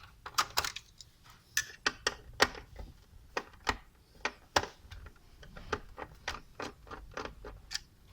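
Irregular sharp clicks and light taps of a screwdriver working on the stand's screws and of hard plastic and metal parts knocking as they are handled, several a second with short pauses.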